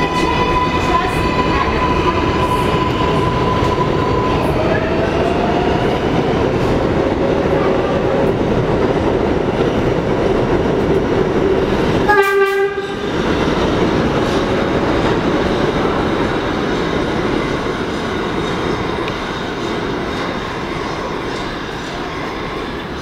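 Kawasaki R188 subway train running past on an elevated track: steady rumble and rattle of wheels on rail, with a steady electric motor whine that drops away about four seconds in. A short train horn blast about halfway through, then the train noise slowly fades.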